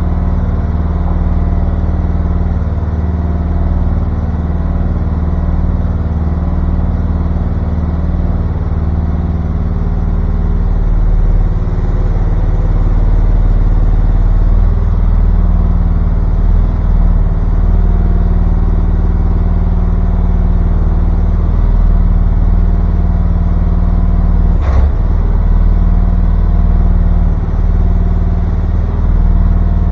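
Mini excavator engine idling steadily as it warms up after a cold start on choke. One sharp knock late on.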